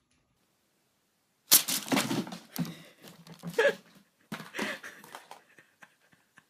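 A cat rustling and crinkling through gift wrapping, in three noisy bursts starting about a second and a half in.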